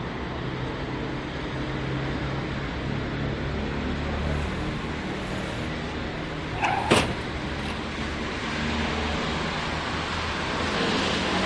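Steady city street traffic noise, with one brief sharp sound about seven seconds in.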